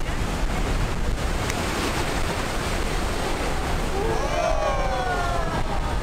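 Wind buffeting the microphone over surf breaking against lava rock. About four seconds in, drawn-out voices rising and falling in pitch join in.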